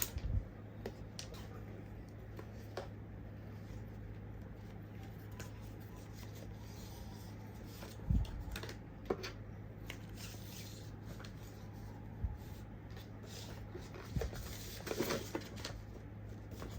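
Packaging being handled during an unboxing: scattered light taps, clicks and rustling of box and wrapping, with a few louder knocks about eight seconds in and a cluster of rustles and knocks near the end, over a steady low hum.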